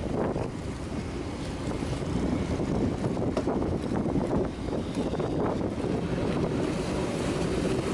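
Wind buffeting the microphone aboard a fishing boat at sea, with waves washing around the hull: a steady, uneven rumbling noise.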